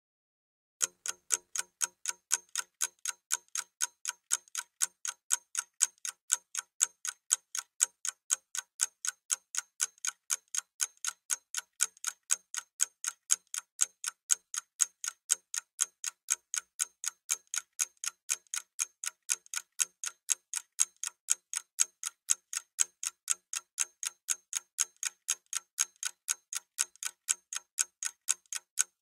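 Ticking-clock countdown sound effect, a fast, even tick-tock that starts about a second in and marks the 30-second time limit running down.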